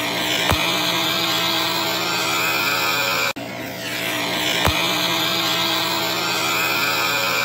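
Electronically stretched, distorted audio loop: a dense, steady drone with several held tones. It repeats about every four seconds, cutting out for an instant a little over three seconds in, with a short low thump shortly after each restart.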